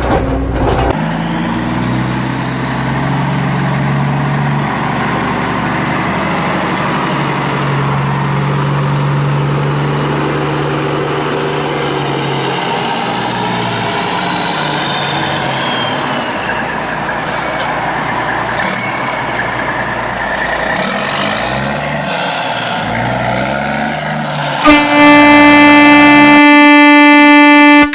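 Truck running with mixed vehicle noise and slowly sliding pitches, then a loud, steady horn blast lasting about three seconds near the end.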